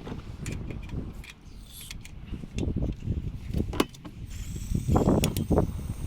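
Camping gear being handled: scattered clicks and knocks with some creaking, and a cluster of heavier knocks about five seconds in.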